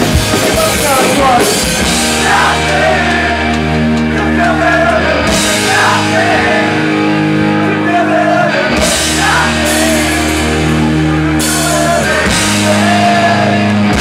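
Rock band playing a pop-punk song: held bass notes under guitars and drums with cymbals, and a sung vocal line over the top.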